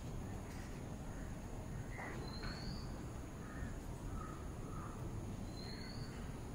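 Birds calling: a short rising whistle repeats about every three seconds, with scattered brief lower calls, over a steady low hum.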